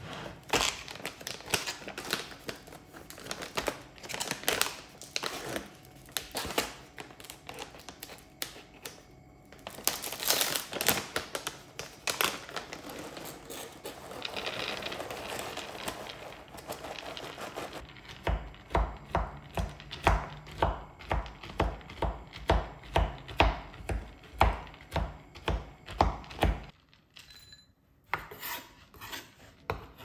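Kitchen prep sounds: scattered clicks and items being handled and set down, then steady rhythmic chopping on a wooden cutting board, about two to three strokes a second, for roughly eight seconds. The chopping stops a few seconds before the end.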